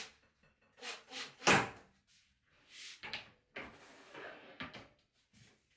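A string of knocks and clatters from flat-pack cabinet panels and a cordless driver being handled on a table, the loudest a sharp knock about a second and a half in.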